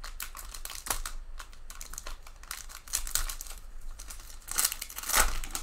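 Stack of trading cards handled by hand: cards slid, flicked and tapped against one another and the table in a quick run of clicks and rustles, with louder rustles near the end.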